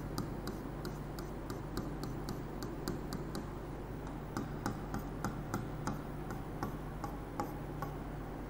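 Felt-tip marker tapping and scratching on a whiteboard in quick hatching strokes, a string of short sharp ticks about three a second, a little uneven. A steady low hum runs underneath.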